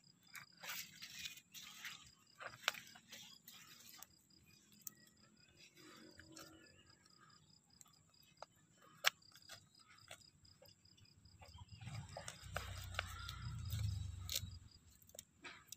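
Hands digging and pulling shallot bulbs from gravelly soil: scattered crackles, rustles and sharp clicks, with a low rumble of handling about twelve seconds in. A cricket chirps steadily in the background in an even, rapid pulse.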